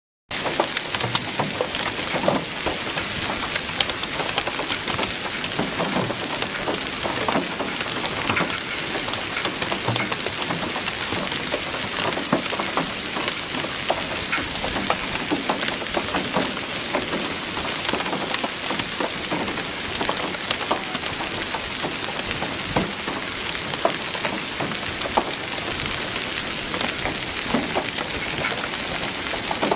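Heavy rain mixed with hail pelting wet, flooded paving: a dense, steady hiss scattered with many sharp ticks of hailstones and drops striking.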